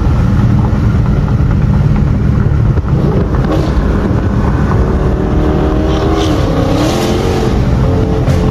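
Dodge Scat Pack's 392 HEMI V8 running at speed, heard from inside the cabin as a steady low exhaust rumble. About halfway through, a higher engine note comes in, dips and rises again as the car picks up speed.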